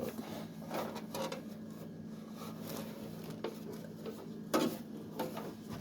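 Light clicks, knocks and rubbing from a speaker selector unit being handled and turned over, with a steady low hum underneath.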